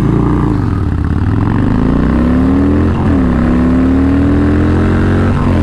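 Harley-Davidson Dyna Fat Bob's V-twin engine at full throttle down a drag strip: the pitch climbs, falls at an upshift about three seconds in, climbs again and falls at another shift near the end.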